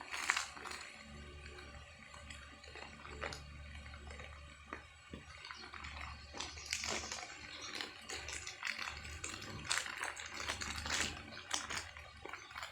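Handling noise from unpacking a small DC motor: scattered clicks, taps and rustles of packaging and parts over a faint steady low hum.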